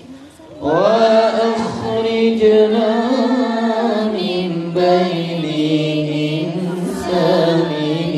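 A man's voice chanting an Islamic sholawat over a microphone in long, drawn-out notes that glide between pitches, after a brief pause right at the start.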